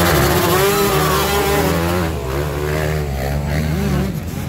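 Motocross bike engines revving up and down as riders churn through a deep mud hole. The low engine note drops away about four seconds in.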